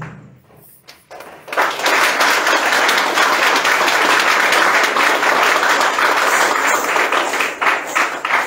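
An audience applauding, starting about a second and a half in after a brief lull and thinning to more separate claps near the end.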